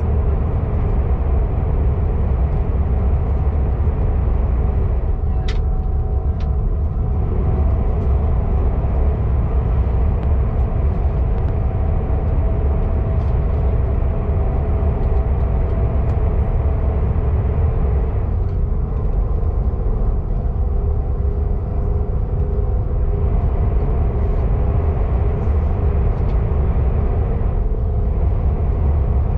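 KTX high-speed train heard from inside the passenger cabin: a steady, deep rumble of the train running, with faint steady tones above it. A single sharp click about five and a half seconds in.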